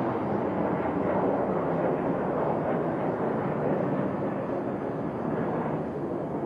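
Boeing 737 airliner's twin jet engines at climb-out thrust: a steady, rumbling jet noise as the plane climbs away, easing slightly near the end.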